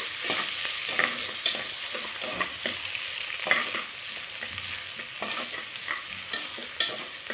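Sliced onions sizzling in hot oil in an aluminium pressure cooker, stirred with irregular scrapes and knocks against the metal pot.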